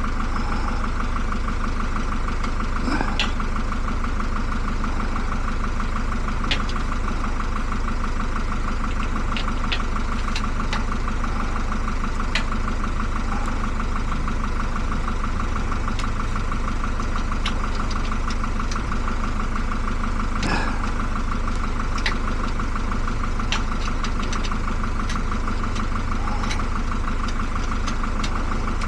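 A motor running steadily, with a few light clicks scattered through it.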